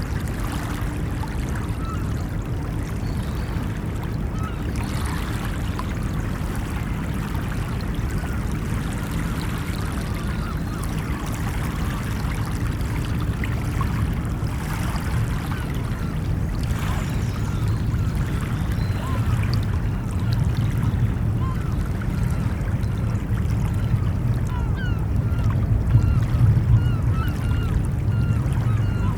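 Ocean surf making a steady low rush that grows a little louder near the end, with many short bird calls scattered over it, coming more often in the last few seconds.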